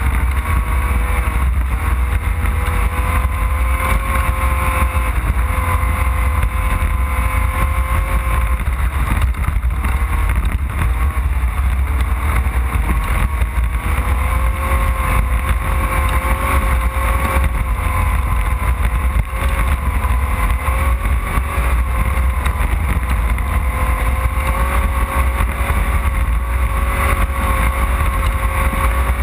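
Off-road desert race vehicle's engine running continuously, its pitch dipping and rising slightly, over a heavy low rumble.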